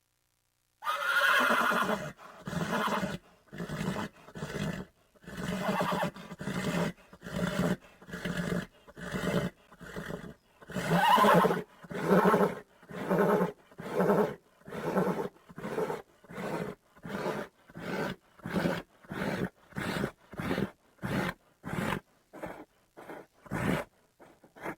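A large animal's loud calls: one long call about a second in, then a long series of shorter pitched calls that grow shorter and come faster toward the end.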